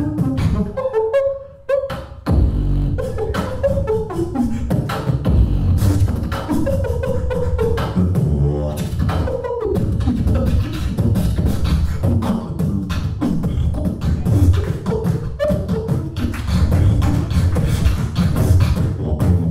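Solo beatboxing into a handheld microphone: a continuous rhythm of vocal kick and snare sounds over a deep bass, with hummed melody lines that rise and fall. There is a short break about two seconds in.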